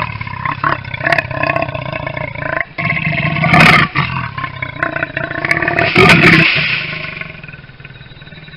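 Leopard snarling and growling aggressively, with loud roaring peaks about three and a half and six seconds in, then fading away near the end.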